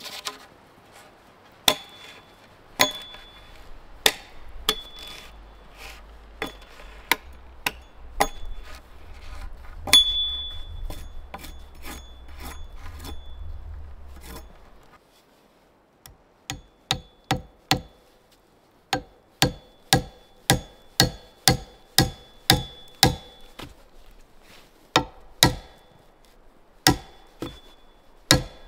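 Axe blows on wood. In the first half they are irregular, about one a second. After a short pause they come in quicker runs of two to three a second, many with a brief ring after the strike.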